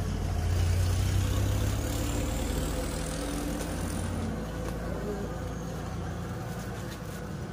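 A motor vehicle engine running steadily at low revs, easing off about halfway through, over a steady background hiss.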